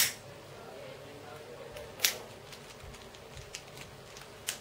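Three sharp clicks about two seconds apart, with fainter small ticks between them.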